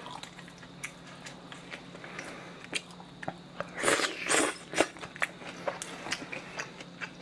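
Slurping a mouthful of spicy cold noodles about four seconds in, surrounded by wet chewing and mouth clicks, over a steady low fan hum.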